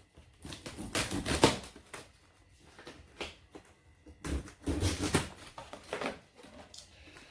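Cardboard box and packaging being handled: a string of irregular knocks, taps and rustles.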